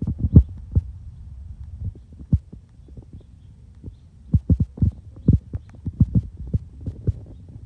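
Wind buffeting the microphone: an uneven low rumble broken by irregular dull thumps, the heaviest just after the start and again in the second half.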